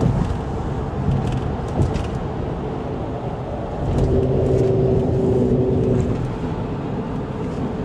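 Car driving, with steady engine and road rumble heard from inside the cabin. A steady low tone comes in about four seconds in and holds for about two seconds.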